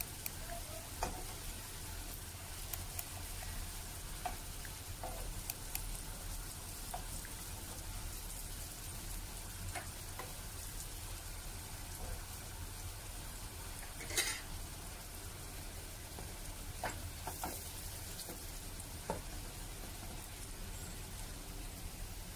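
Stuffed wheat-flour flatbreads shallow-frying in oil in a nonstick pan, with a steady soft sizzle and crackle. A few short clicks of a metal spatula against the pan break in as the breads are turned, the loudest about fourteen seconds in.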